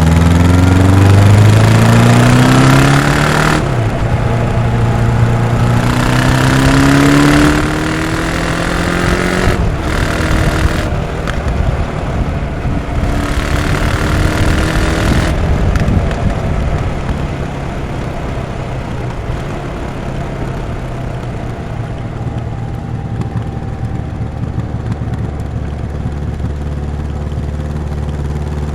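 Honda CB 1100 RS's air/oil-cooled inline-four through its stock exhaust, accelerating in several pulls, the pitch rising and then dropping at each gear change. About halfway through the throttle comes off and the engine settles into a steadier, quieter, lower-revving run.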